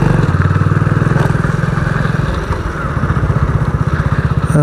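Motorcycle engine running as the bike rides along, with a fast, even beat of exhaust pulses.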